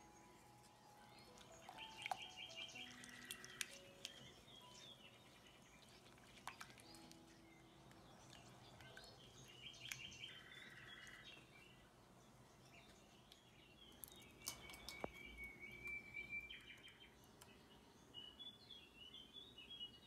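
Faint background music: a soft melody with bird-like chirps and trills that recur in a repeating pattern.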